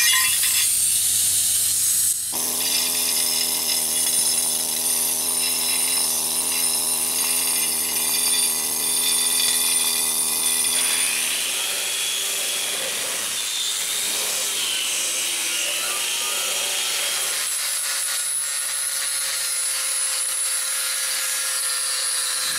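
Electric angle grinder grinding the edges of plasma-cut 3/16-inch steel patch plates, bevelling them for welding: a steady whine with the rasp of the disc on metal. A different, hissing tool sound fills the first two seconds, and the grinder's tone shifts again around eleven seconds in.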